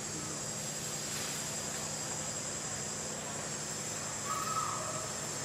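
Steady forest ambience with a constant high-pitched insect drone. A short call comes about four seconds in.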